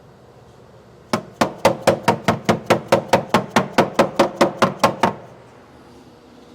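A body hammer beating the sheet metal of a Tesla Model 3's rear quarter panel in a rapid, even run of about five blows a second, each with a short metallic ring. The hammering starts about a second in and stops after some four seconds: panel-beating a dented body line back into shape.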